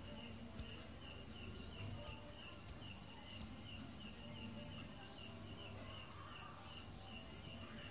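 Faint chirping repeated evenly, about three chirps a second, over a low steady hum, with a few scattered sharp ticks.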